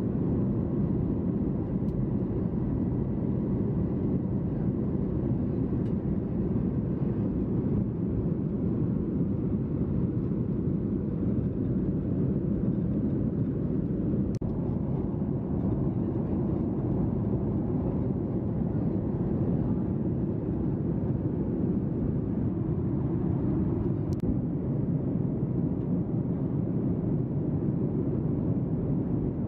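Steady cabin noise of a Boeing 737-800 in flight, heard from a passenger seat: an even rush of jet engine and airflow noise, with a few faint ticks.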